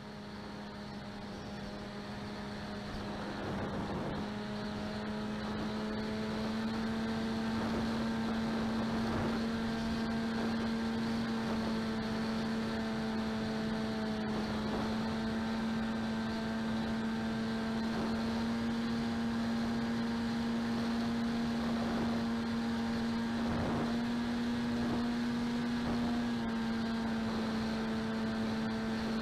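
Electric motor and propeller of a Skywalker X8 flying wing running at steady cruise power, a constant droning hum under a hiss of rushing air, its pitch shifting slightly near the end.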